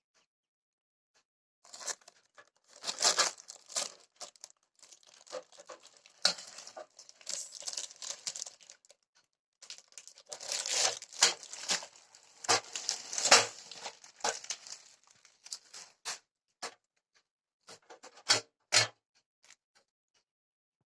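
Irregular rustling and crinkling, broken by scattered sharp clicks and taps, in a small room.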